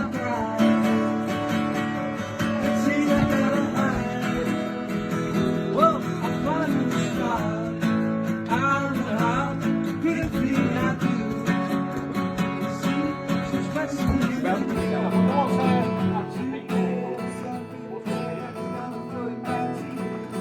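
Music with a strummed acoustic guitar.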